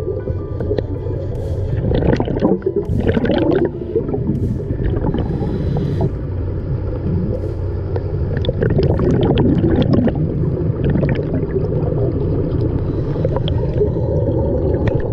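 Underwater sound picked up inside an aquarium tank: a steady low rumble with irregular gurgling bursts of scuba regulator exhaust bubbles, the strongest a couple of seconds in.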